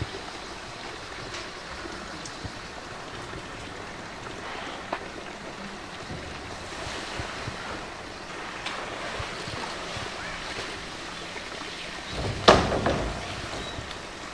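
Steady rush and lapping of water in a polar bear's pool, with one sudden loud thump about twelve seconds in.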